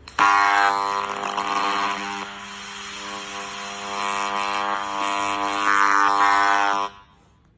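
A smartphone speaker playing back a recording jammed by an AJS-333 ultrasonic audio jammer. A loud, steady buzzing drone with many evenly spaced overtones and hiss covers the recorded voice, and it cuts off suddenly near the end.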